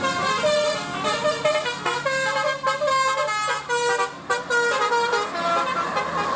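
Bus 'telolet Basuri' melodic horn playing a quick tune of short notes that step up and down in pitch, over a steady low hum.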